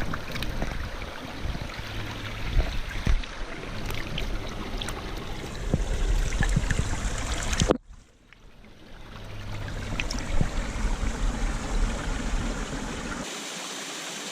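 A fast mountain creek rushing over rocks, a steady water noise with a low rumble and scattered knocks and clicks from handling close by. The sound cuts out abruptly about eight seconds in and swells back up over the next couple of seconds.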